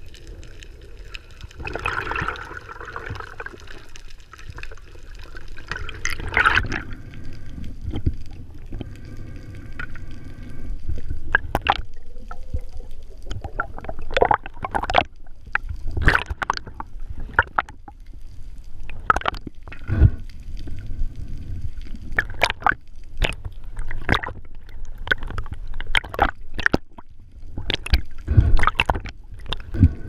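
Underwater water noise, a low rushing and gurgling, with many short sharp clicks and knocks at irregular intervals, coming thicker in the second half.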